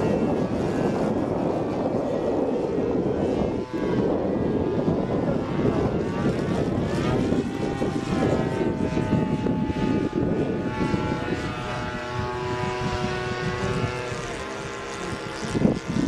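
A Seagull Edge 540 model aerobatic plane's 26cc petrol engine and propeller droning overhead in flight. The pitch sweeps up and then down about halfway through and holds steadier near the end.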